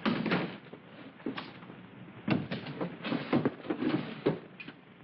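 Irregular knocks and clatters of objects being handled on a desk, busiest in the middle and fading near the end.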